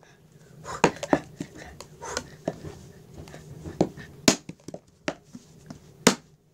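An uneven series of sharp knocks and taps from a small hard object swung and struck by hand, with about seven loud hits among lighter taps.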